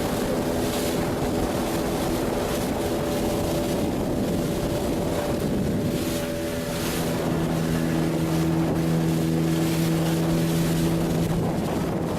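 A fishing boat's motor running steadily, its pitch shifting slightly about halfway through.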